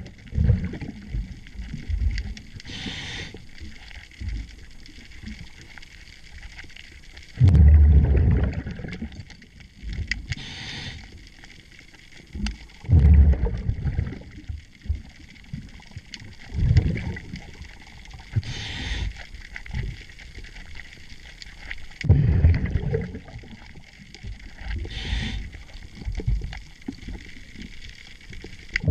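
A diver's breathing regulator heard underwater: a short hiss on each inhale about every seven or eight seconds, and loud bubbling bursts of exhaled air between them.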